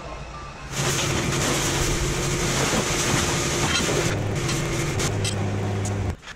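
Pressure washer spraying: a steady hiss of the water jet over the machine's motor hum, starting about a second in and cutting off abruptly near the end.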